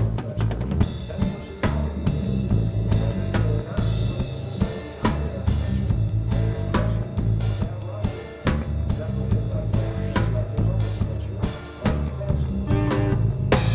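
Live band music: a drum kit playing a steady beat with snare and bass drum hits over a low bass line.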